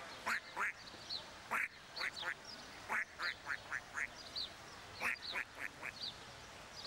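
Ducks quacking in short runs of loud, quick quacks, the longest runs five or six quacks in a row, about three seconds in and again near the end. A small bird chirps faintly and high in between.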